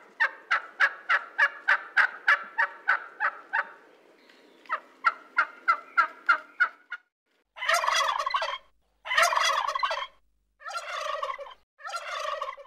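Wild turkey calling: two runs of short, evenly spaced notes, about four a second, then four gobbles of about a second each.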